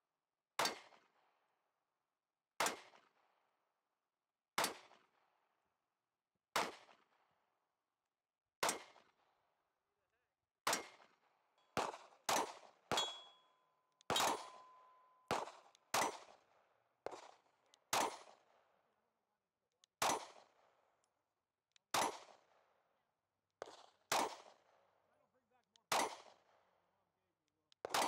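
Compact carry pistols firing at steel targets, mostly about one shot every two seconds, with a quicker run of shots around the middle. The hits clang off the steel plates, and one rings on briefly near the midpoint.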